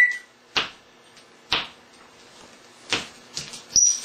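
African grey parrot making a series of sharp, single clicks, roughly one a second, with a short high whistle near the end.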